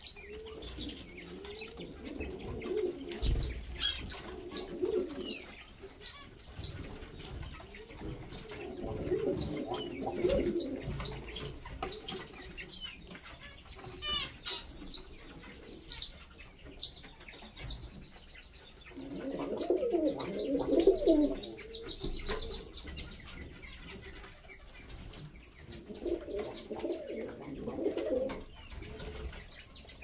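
Pigeons cooing in several low bouts of a second or two each, while small birds chirp and trill in short high calls throughout.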